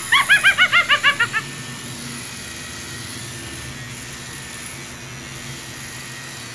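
A fast run of about ten shrill, rising-and-falling cries, a hawk-cry sound effect, in the first second and a half. Then an HTC rechargeable hair clipper buzzing steadily as it trims hair beside the ear.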